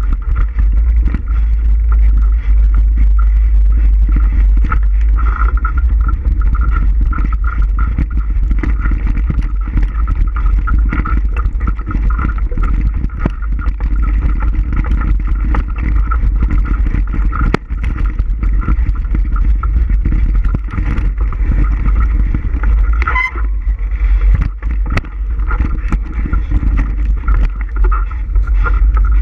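A bicycle riding along a dirt trail: heavy wind rumble on the microphone, a steady whir, and frequent small rattles and knocks from the bumps. A short squeak cuts in about 23 seconds in.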